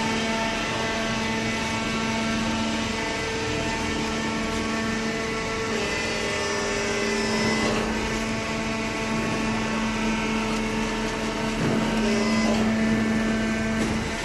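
Horizontal waste paper baler running: a steady machine hum from its hydraulic power unit, with a few slight shifts in tone and a little louder near the end.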